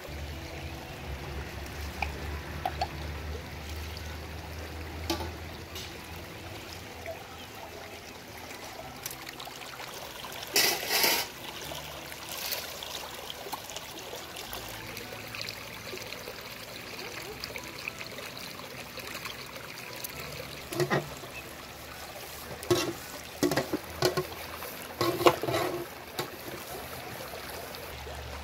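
Shallow stream running steadily over stones, with scattered short splashes and knocks from hands working in the water, the loudest about ten seconds in and a cluster of them near the end.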